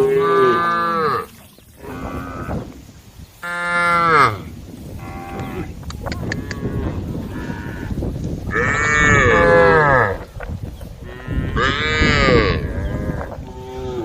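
Herd of cattle mooing: a run of long, loud moos from several cows, some overlapping, with the strongest calls about halfway through and again near the end.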